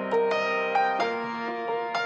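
Background music: a soft piano melody of sustained notes, with new notes struck about every half second to second.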